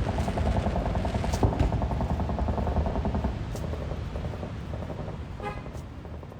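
A steady low rumble with a fast flutter, fading steadily toward the end, with a brief horn-like tone about five and a half seconds in.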